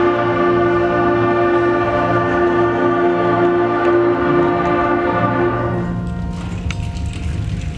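Student concert band holding one long sustained chord of brass and woodwinds, which fades out about six seconds in. A patter of clapping begins as the chord dies away.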